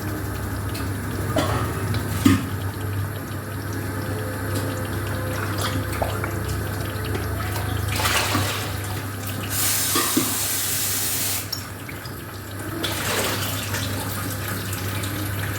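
Water from a kitchen tap running and splashing in several short spells, the longest a steady hiss of about two seconds near the middle, with a few knocks of kitchen utensils over a steady low hum.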